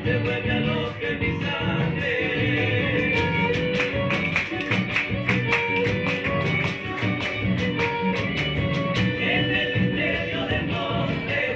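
Live band playing a gato, Argentine folk dance music, on guitar and drum kit: steady strumming and drum strokes under a melody of held notes.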